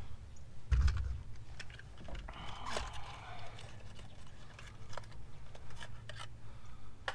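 Light clicks and clinks of hand tools being handled, a spark plug socket and extension set down, with a dull knock about a second in.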